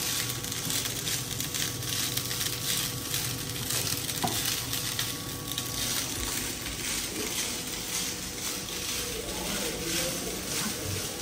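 Spiced chilli rice frying in a nonstick wok, sizzling steadily while a spatula stirs and scrapes it around the pan in a run of small irregular scrapes.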